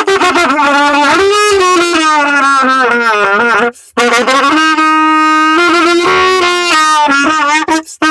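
Trumpet, a 1953 Pan American student model with an Olds Mendez mouthpiece, played solo and close up inside a car. It plays a long, wavering phrase that drifts down in pitch, takes a brief breath just before the four-second mark, then holds long steady notes with bends near the end.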